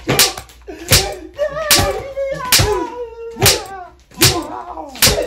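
A spanking: sharp smacks landing about once a second, seven in all, each one followed by a wavering yelled cry.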